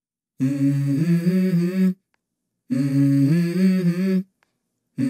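Background vocal music: a low voice humming a short melody that steps upward, the same phrase repeated, with brief silent gaps between the phrases.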